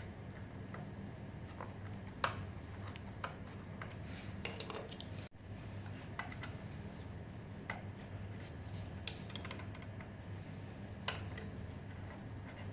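Scattered small metallic clicks and clinks of hand tools and parts being handled during brake work on an electric scooter, over a steady low hum.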